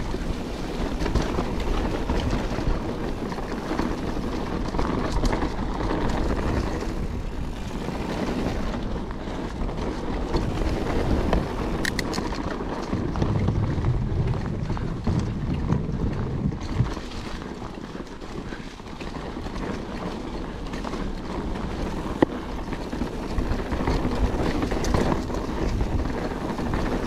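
Mountain bike riding down a dirt forest trail: tyres rolling over the ground, the bike clattering over bumps, and wind buffeting the microphone. About thirteen seconds in, a deeper rumble as the tyres cross a wooden boardwalk, with a couple of sharp knocks along the way.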